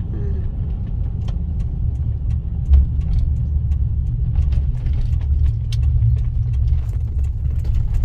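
Steady low rumble with scattered light clicks and knocks, one louder knock a little under three seconds in.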